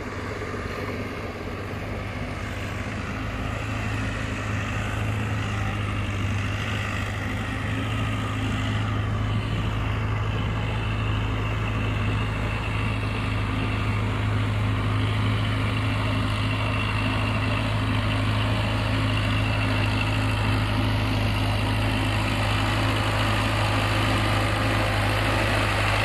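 Case 580D backhoe loader's diesel engine running steadily as the machine drives across the field, growing gradually louder as it comes closer.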